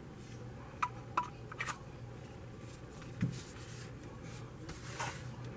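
Small plastic clicks and taps from handling a GoPro dual battery charger: two sharp clicks, a quick double click, then a duller knock. Near the end comes a short sliding scrape as a battery is pushed into a charger slot.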